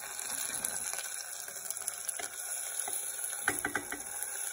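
Chopped onions sizzling in oil in a pressure cooker, a steady hiss. A little after three seconds in, a few quick clinks of metal on metal as chopped tomatoes and coriander are tipped in from a steel plate.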